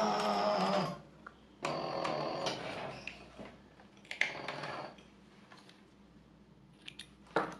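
Anysew AS341 cylinder-arm industrial sewing machine stitching leather in three short runs, its motor whining and the needle mechanism clattering, with pauses between. A few sharp clicks come near the end.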